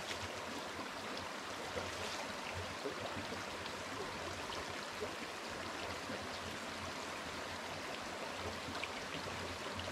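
Small, shallow rocky creek running over stones: a steady, even rush of water, with a few faint splashes as a hand scoops water to drink.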